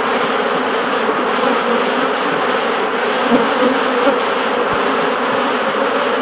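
Loud, steady buzzing noise.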